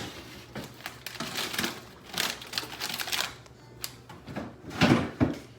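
A run of irregular light clicks and rattles from objects being handled, with a louder cluster of knocks near the end.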